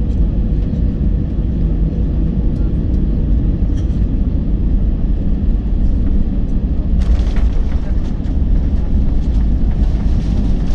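Cabin noise of an Airbus A320 in the last seconds of its landing approach: a steady, loud, low roar of engines and airflow. About seven seconds in, a hissy, rattling noise joins it, as the airliner comes down over the runway.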